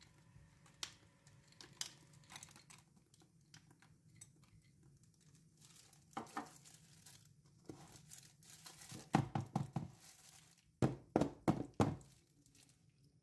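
Handling a metal tube cake pan of batter while raisins are scattered over it: light clicks and rustles, then two quick runs of sharp knocks, about five and then four, in the last few seconds.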